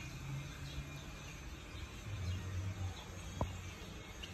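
Outdoor yard ambience: a low steady hum with faint, scattered high chirps, and one sharp click about three and a half seconds in.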